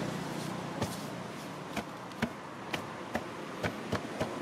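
Macaques scrambling on dry leaf litter and dirt: a string of sharp, irregular crackles and clicks, about eight in a few seconds, over a light background hiss.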